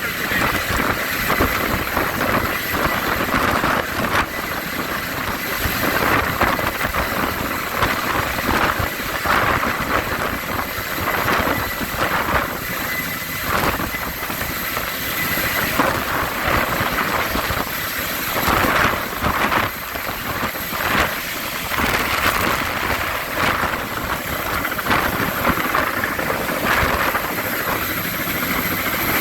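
Helicopter running close by: a loud, steady rotor-and-engine noise with a thin, constant whine, lifting a load of concrete for pouring.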